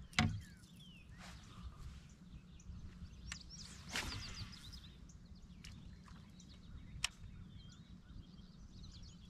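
Small birds chirping and calling over a low steady rumble, with a few sharp clicks and a swish of a fishing rod being cast about four seconds in.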